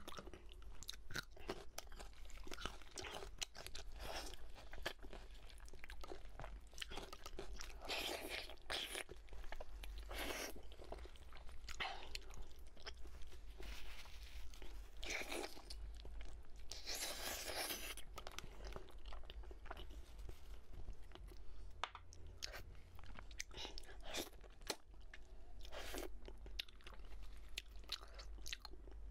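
Close-miked chewing and biting of spicy braised pork knuckle: a run of short, irregular mouth sounds with a few longer ones.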